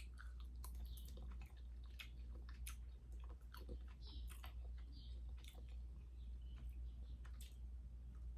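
Chewing a strand of Sour Punk sour candy close to the microphone: irregular wet mouth clicks and smacks over a steady low hum.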